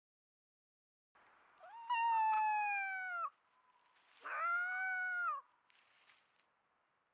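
A wolf howling: two long calls, each a held note that slides gently down in pitch and breaks off, the second lower and shorter than the first.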